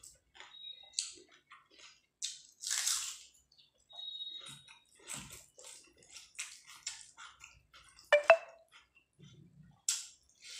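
Close-up eating sounds: wet chewing, lip smacks and crunching, with the squish of rice and curry being worked by hand. A sharp knock with a short ring about eight seconds in is the loudest sound.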